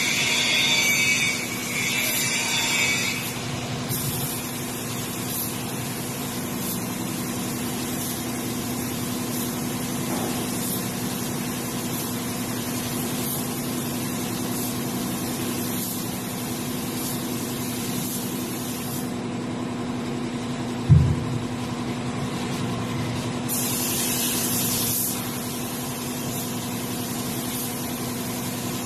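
Air compressor running with a steady hum, while a paint spray gun hisses in short bursts: one at the start and another a few seconds after a single low thump about three-quarters through.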